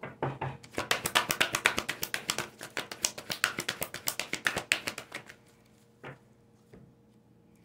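A deck of oracle cards being shuffled by hand: a fast run of crisp card flicks lasting about five seconds, then two single soft clicks.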